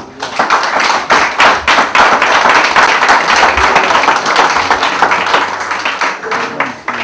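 Audience applauding: many hands clapping loudly together, starting all at once and dying away near the end.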